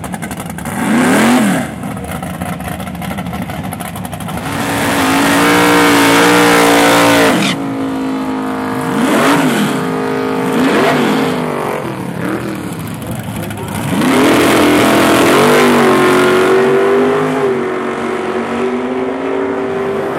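Drag race car engines revving hard and accelerating down the strip. The pitch climbs and drops several times, and there are two long, loud full-throttle stretches, about a quarter of the way in and again past the middle.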